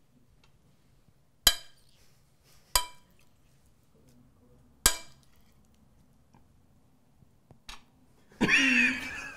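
A metal spoon clinking against ceramic serving dishes, four sharp ringing clinks spaced a second or two apart. Near the end comes a loud, high-pitched cry about a second long whose pitch slides up and down.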